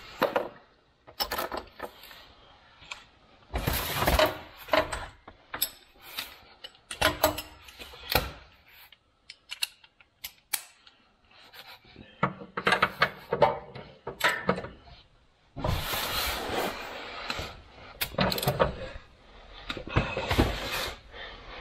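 Long-handled ratchet wrench turning a rear cradle bolt the extra 90 degrees past 74 ft-lb, the angle-torque step of tightening. It comes in bursts of clicking and metal scraping with short pauses between.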